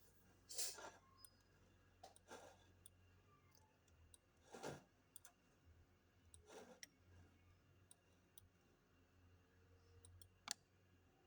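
Near silence with a handful of faint, scattered clicks.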